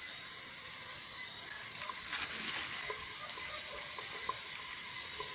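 Floured chicken deep-frying in a pot of very hot oil: a steady sizzling hiss with scattered small pops and crackles.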